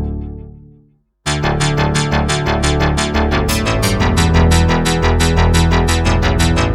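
Waldorf Microwave wavetable synthesizer playing a demo patch: one sound fades away over the first second, then after a brief silence a new patch comes in as a fast repeating pattern of bright notes over a sustained bass.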